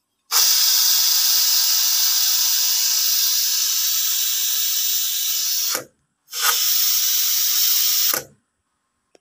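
Stovetop pressure cooker letting off steam through its lid valve in a loud, steady hiss as the release button is pressed: one long blast of about five seconds, then a shorter one of about two seconds. This is the pressure being released at the end of cooking, before the lid is opened.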